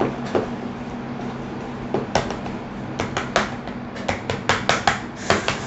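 Wire whisk beating thick chocolate cake batter in a plastic bowl: the whisk taps and clicks against the bowl, sparse at first, then several quick ticks a second from about two seconds in. A steady low hum runs underneath.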